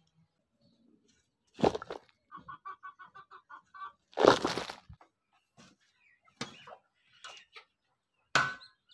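Heavy thuds of a hoe striking into hard, dry soil, three times a few seconds apart. Between the first two strikes a hen gives a quick run of clucks.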